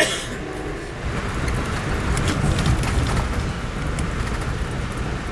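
Amtrak passenger train running along the tracks, a steady low rumble that grows louder about a second in, with scattered light clicks. A short sharp noise right at the start.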